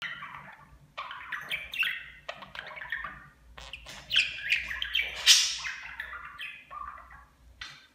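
Budgerigar chattering and chirping: a run of short chirps and squawky bursts with brief pauses between them.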